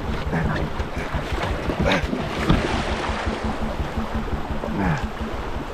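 A loaded canoe scraping and knocking over the stony bed of a very shallow creek, with water rippling over the rocks. There are a few sharper knocks, about two seconds in and again near the end, and some wind noise on the microphone.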